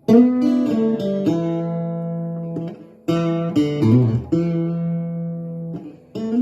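1960s Cremona parlor acoustic guitar being played. A chord is struck and left to ring, with a few note changes, and a second chord comes about three seconds in with a short run of bass notes before it rings on.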